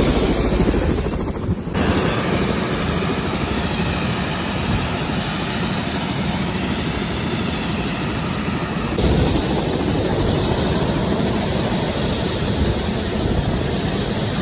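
Helicopter running on the helipad: a loud, steady rotor and engine noise with no let-up. The sound changes abruptly about 2 seconds in and again about 9 seconds in.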